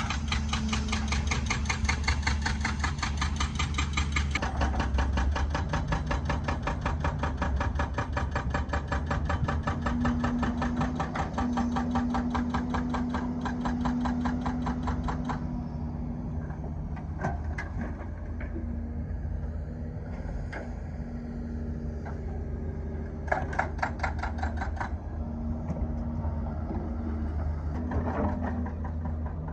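Excavator's hydraulic breaker hammering in a rapid, even rhythm of blows over the running diesel engine, stopping about halfway through. The engine keeps running alone, with a few single knocks and a second short burst of hammering a little later.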